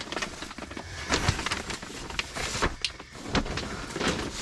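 Irregular scuffing, scraping and light knocks of a person crawling over dirt and debris under a mobile home.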